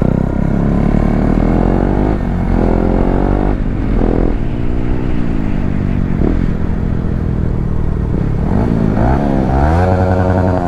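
Motorcycle engine revving and accelerating, its pitch climbing and dropping again several times as it pulls through the gears, with a sharp rise in revs and a fall near the end.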